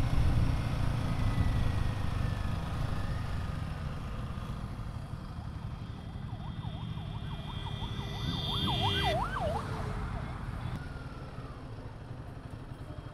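Low rumble of a Royal Enfield Himalayan 450's single-cylinder engine with road noise, dying down as the bike slows. About six seconds in, a warbling siren-like tone swings rapidly up and down for about three seconds.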